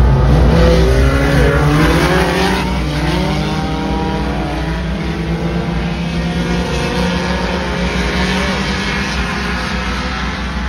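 Several front-wheel-drive race cars' engines running hard on the track, their pitches rising and falling against each other, the sound slowly fading.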